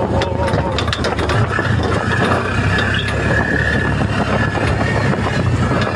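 Off-road vehicle's engine running as it drives over a rough dirt road, with rattling and clattering in the first second or so and a steady whine after that.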